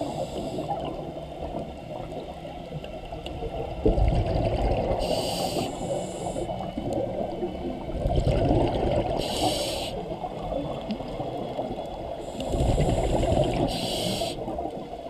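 Scuba regulator exhaust bubbles bursting out three times in rhythm with a diver's breathing, about every four seconds, over a steady underwater rumble. A dull knock comes about four seconds in.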